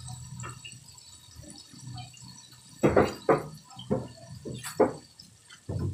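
Chicken pieces deep-frying in oil: a low steady bubbling, broken from about halfway through by a run of sharp pops and crackles.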